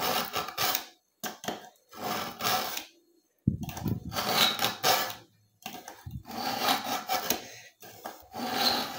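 Steel kitchen knife blade pulled again and again through a BAUM ZINDECH ZRT-400 manual pull-through sharpener: a scraping stroke on each pull, roughly one a second, with short pauses between.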